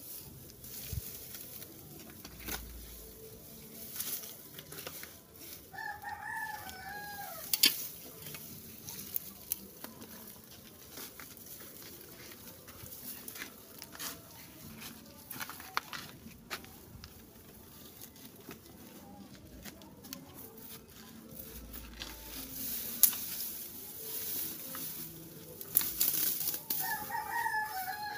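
A rooster crowing twice, once about six seconds in and again near the end. In between come scattered rustles and knocks, with dry grass being handled.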